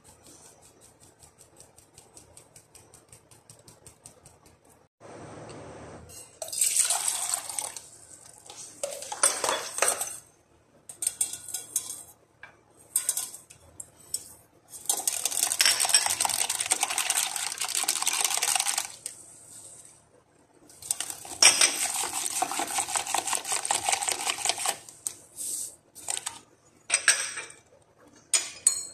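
Wire whisk beating a milky liquid in a stainless steel bowl, the wires clattering rapidly against the metal in loud bursts of a few seconds each with short pauses between, after a few seconds of faint ticking at the start.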